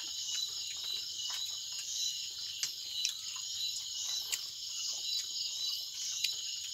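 A steady, high-pitched chorus of night insects, with scattered soft clicks and smacks of eating rice by hand from a metal bowl.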